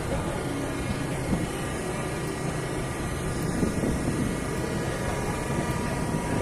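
Steady outdoor background noise with a continuous mechanical hum holding a few even tones, without distinct knocks or breaks.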